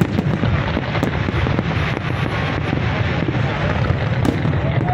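Fireworks display: a continuous low rumble of many shells bursting together, with sharp cracks and pops scattered through it.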